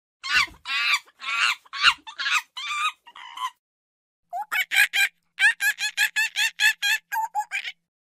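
Monkey calling: a run of about eight shrill, wavering screeches, then after a short pause a quicker series of about fifteen short, sharp calls, roughly four or five a second.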